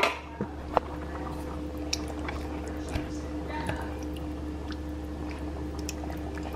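Canned whole peeled tomatoes squishing wetly as they go into a pot of tomato sauce, with a couple of sharp metal clicks in the first second and soft scattered ticks after. A steady low hum runs underneath.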